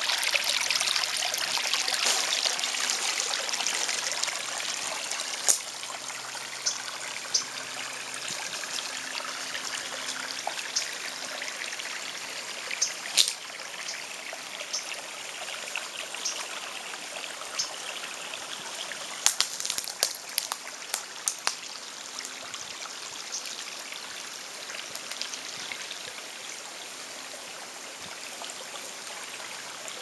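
Shallow stream running and trickling over a gravel bed, loudest in the first few seconds and then fainter and steady. A few short sharp ticks sound over it, several close together about two-thirds of the way in.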